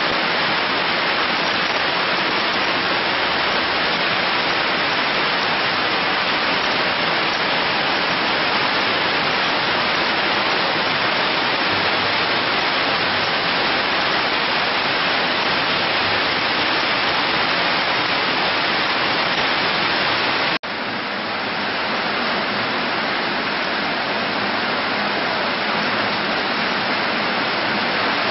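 Heavy rain pouring down, a dense, steady hiss. About two-thirds of the way through it breaks off for an instant and resumes slightly softer.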